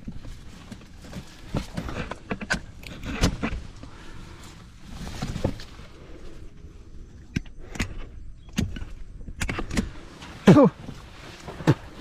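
Hands rustling and clattering against a bamboo cage trap lined with banana leaves, with irregular rustles, clicks and small knocks. A short falling cry comes about ten and a half seconds in.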